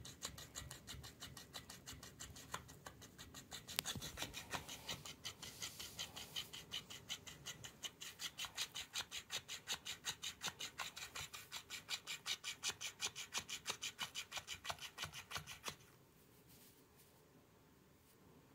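Plush fish toy scraping and rubbing against a rug in rapid, even, scratchy strokes, about four a second, as the cat grapples with it. The strokes stop abruptly near the end.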